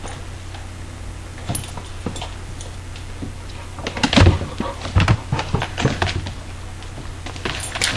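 Two dogs, a Labrador and a Border Collie, scuffling at play on a tile floor: claws clicking and scrabbling, with heavy thumps about 4 and 5 seconds in as one dog rushes past close by. A steady low hum runs underneath.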